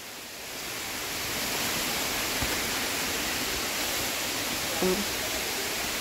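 Steady rush of a waterfall, swelling over the first second and then holding even.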